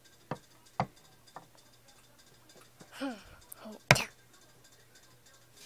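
Small plastic toy figures handled and knocked on a wooden floor: a few scattered sharp clicks, and one loud knock about four seconds in. Just before that knock comes a short wordless voice that falls in pitch.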